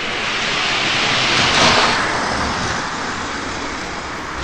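Six die-cast Hot Wheels cars rolling down a six-lane orange plastic drag track in a race heat: a steady rushing noise that swells, peaks about a second and a half in, then eases off.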